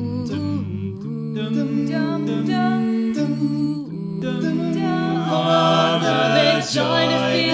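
A cappella vocal group singing wordless held chords in close harmony. The voices grow louder about five seconds in.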